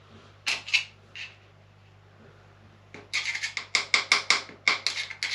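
A hand tool working the handlebar riser bushings out of a Harley-Davidson Dyna: a few separate sharp strokes, then a quick run of short, sharp strokes at about five a second.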